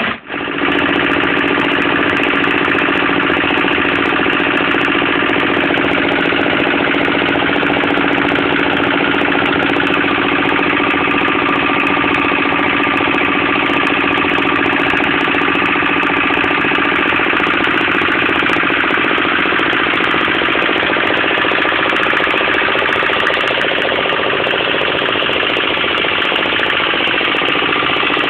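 Engine-driven compressor running steadily at a constant speed, with a loud, even mechanical drone.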